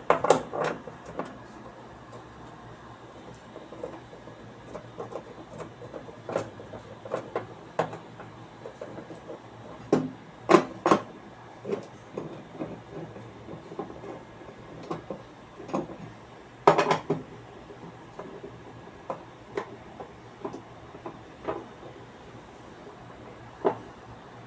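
Scattered knocks, clicks and clatter of tools and metal and plastic parts being handled while the transmission of a Consul 12 kg washing machine is taken apart, with pulley, belt and mounting plate coming off. A quick rattle of several knocks comes about two-thirds of the way through.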